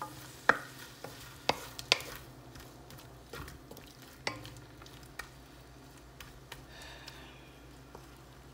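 Wooden spoon stirring shrimp frying in oil in a metal pot, knocking against the pan a few sharp times in the first half, over a faint sizzle.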